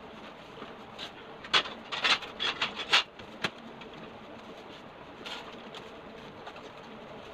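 Sharp knocks and clatter from handling a black metal stove-stand frame and its cardboard box, bunched in the first three and a half seconds, then softer rustling of cardboard and paper.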